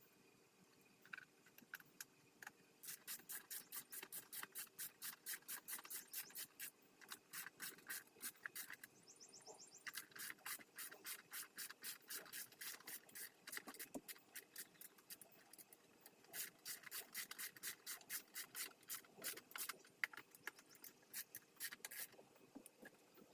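Faint, rapid rasping strokes, about five a second, coming in runs of a few seconds with short pauses between, from hand work during the bike's reassembly. A brief run of fine fast ticks comes about nine seconds in.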